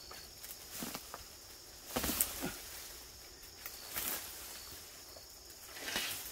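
A multi-stemmed shrub being pulled out of the ground by hand: roots tearing loose, soil crumbling and stems rustling, in four separate bursts, the loudest about two seconds in.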